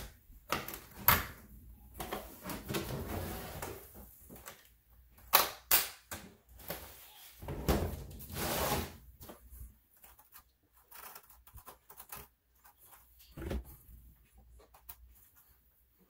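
Plastic clicks, knocks and rubbing from hands taking apart and cleaning the underside of an iRobot Roomba 675 (its brushes, caster wheel and side brush), clogged with hair. Scattered sharp clicks with two longer stretches of rubbing, growing sparser after the halfway point.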